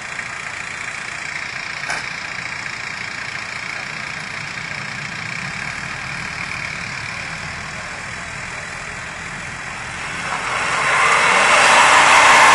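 Armoured police truck's engine idling steadily, then from about ten seconds in it revs up loudly for a few seconds as the truck, stuck in deep snow, tries to drive out.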